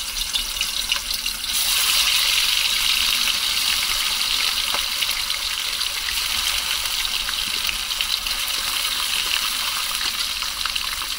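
Fish pieces deep-frying in very hot oil in a pan: a steady sizzle with fine crackling spatter, growing louder about one and a half seconds in.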